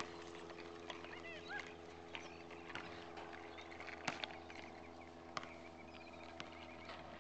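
Faint outdoor ambience: small birds chirping now and then, a few light clicks, and a steady low hum.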